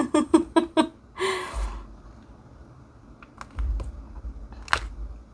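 A short chuckle, then a few scattered light clicks and soft taps from a diamond painting drill pen placing drills on the canvas.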